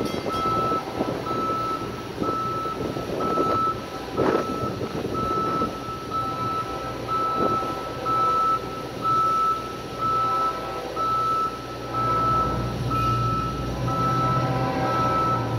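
Railroad grade-crossing warning bell ringing steadily, about two dings a second, as the crossing signals are activated for an approaching freight train, over rumbling traffic and wind noise. Near the end a distant multi-note train horn begins to sound.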